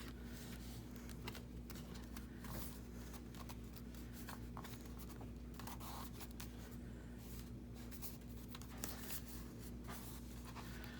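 Paper and card stock being handled and pressed into place: scattered soft rustles and taps, over a steady low hum.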